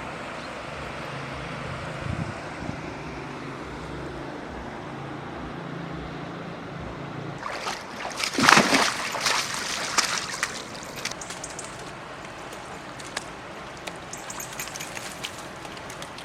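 Water splashing and sloshing for a few seconds, loudest about eight and a half seconds in, then tapering off into scattered small drips and clicks, over a steady background rush.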